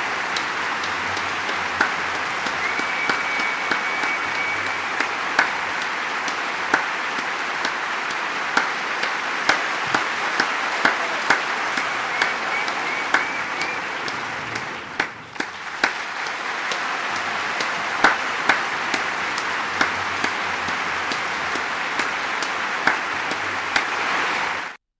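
Large crowd cheering and clapping, with individual sharp claps standing out from the roar and a held high whistle about three seconds in. The noise sinks briefly about fifteen seconds in, swells back, and cuts off suddenly near the end.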